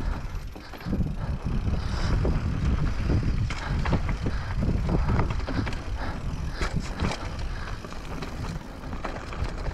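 Mountain bike rolling along a narrow wooden plank trail and then onto dirt: a steady low rumble of the tyres, with many scattered knocks and rattles from the planks and the bike.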